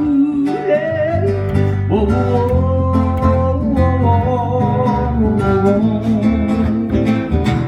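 A band playing a song: strummed acoustic guitar over a steady bass line, with long held melody notes on top.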